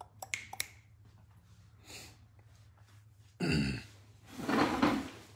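A person clearing their throat off camera: a short rough voiced hack about three and a half seconds in, then a longer breathy rasp, after a few light clicks near the start.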